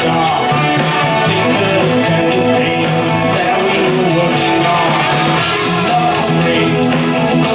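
Live rock band playing an 80s pop-rock cover song, with strummed electric guitar prominent in the mix.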